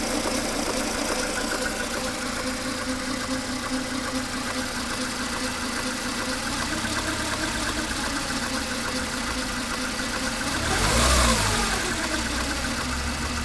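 Mercedes A 140 (W168) 1.4-litre four-cylinder petrol engine idling with a fast, unhealthy rattle, which a mechanic puts down to the timing chain or its tensioner. About eleven seconds in the engine is briefly revved and drops back to idle.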